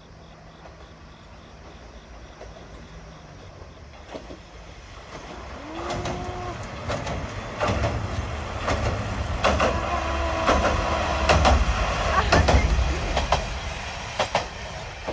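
A Kominato Railway diesel railcar approaching and passing close by. Its engine rumble and its wheels clacking over the rail joints swell to their loudest about two-thirds of the way through, then ease off. A steady tone sounds twice during the pass.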